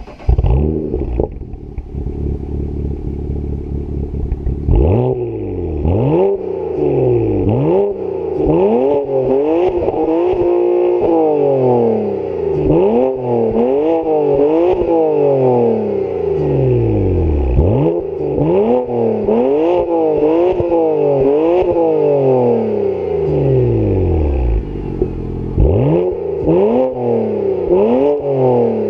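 BMW 335i's turbocharged 3.0-litre straight-six, breathing through stock catalytic converters and an AC Schnitzer rear silencer, revved while parked. It idles steadily, then from about five seconds in is blipped over and over, each rev rising and falling in about a second, with one short held rev and a brief return to idle near the end. Sharp cracks come out of the exhaust among the blips.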